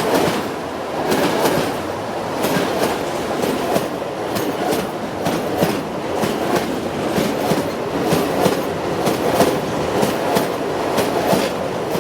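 Train running along the track: a steady rumble with repeated clickety-clack from the wheels passing over rail joints.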